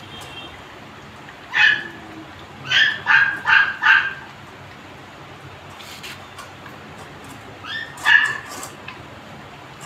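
Pitbull puppies yipping in short, high-pitched yelps: one about a second and a half in, a quick run of four around three to four seconds, and another near the eight-second mark.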